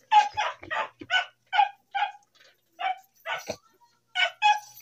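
A dog giving a quick run of short, high-pitched yips and barks, about two or three a second, with a brief pause a little past the middle.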